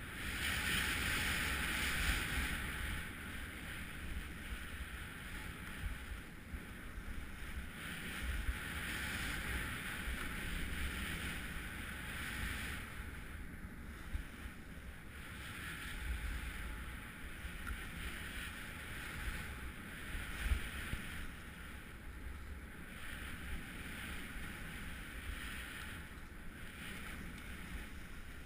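Skis sliding and scraping over packed, tracked snow on a downhill run, a hiss that swells and fades with each turn, over wind buffeting the microphone.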